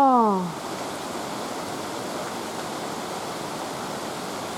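Floodwater rushing past with a steady, even noise. In the first half second a loud drawn-out voice call slides down in pitch and fades away.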